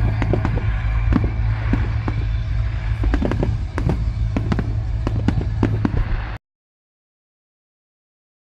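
Fireworks display picked up by a phone microphone: a rapid string of sharp bangs and crackles over a steady low hum. The sound cuts off to dead silence about six seconds in.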